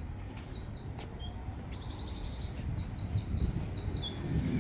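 A songbird singing a quick string of high, down-slurred notes that ends in a short flourish, over a steady low rumble.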